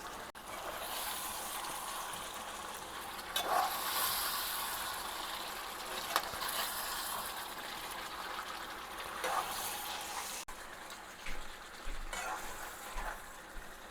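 Chicken and chopped potatoes sizzling in oil and spiced onion-garlic paste in a cooking pot: a steady frying hiss, with three brief louder moments from stirring.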